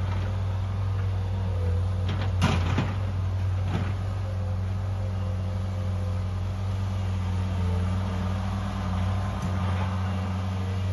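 An engine running steadily at one speed, a low even hum, with a few sharp knocks about two and a half seconds in.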